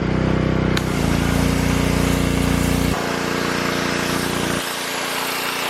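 Pressure washer running steadily, its motor humming, with the hiss of the water jet starting under a second in as it sprays a rusted griddle top. The low hum drops in level twice.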